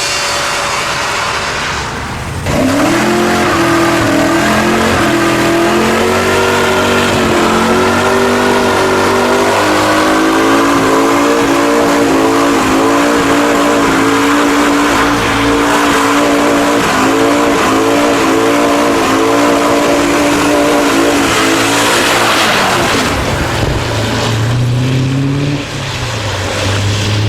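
A car driven hard on wet tarmac, its engine held at high revs with the pitch wavering, and tyres squealing, for about twenty seconds. Near the end the engine drops to lower revs and rises and falls before the sound stops.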